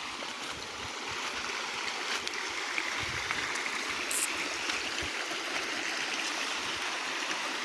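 Steady rushing of a small waterfall and river, running with low water. No voice.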